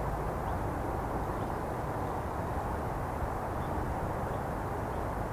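Steady low outdoor background rumble with no clear events, and a few faint, brief high chirps.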